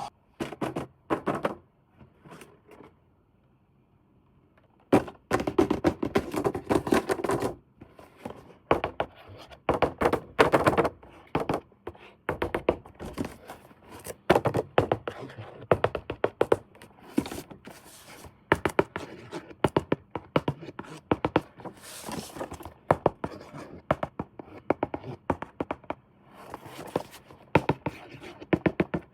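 Hard plastic toys and packaging being handled: a dense, irregular run of clicks, knocks and scrapes, with a near-quiet pause from about two to five seconds in.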